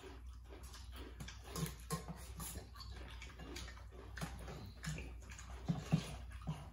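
Close-up eating noises: wet slurping and chewing of noodle soup, with scattered light clicks of spoons against metal bowls.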